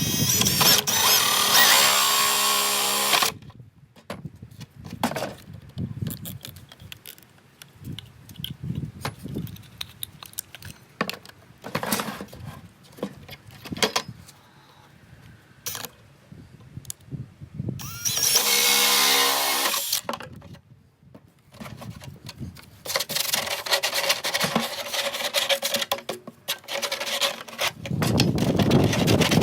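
Electric drill running in three bursts: one at the start, a short one about two-thirds through, and a longer one near the end. Short knocks and clatter come in between.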